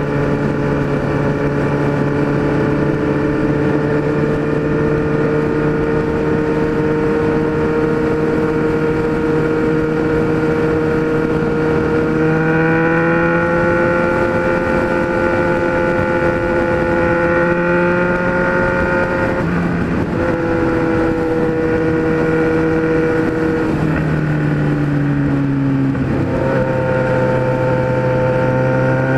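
Kawasaki Z1000's inline-four engine through a 4-into-1 exhaust, running at a steady speed while riding. Its pitch steps up about twelve seconds in, dips briefly around twenty seconds, falls away for a couple of seconds around twenty-four seconds, then climbs again near the end.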